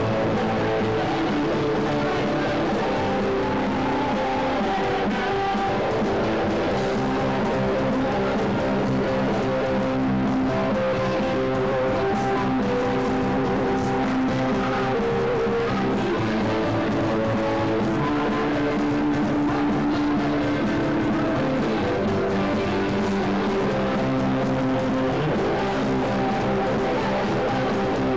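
Live rock band playing, led by electric guitar over bass, at an even, loud level.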